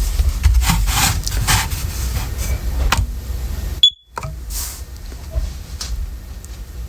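Clicks and rustling as a First Alert hardwired smoke alarm is handled, then one short, sharp high-pitched beep from the alarm about four seconds in, which cuts off abruptly.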